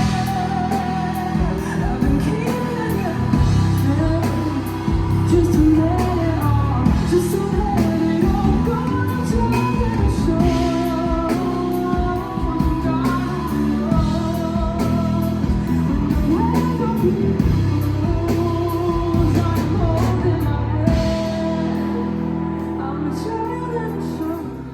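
A singer performing a pop-rock song with a backing band: a sung melody over bass and drums, growing quieter near the end.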